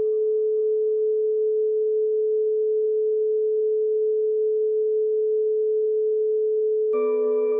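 Relaxation music: a single steady pure tone held on its own, its faint overtones fading away within about the first second. About seven seconds in, a fuller chord of ringing tones enters, with a lower note under it.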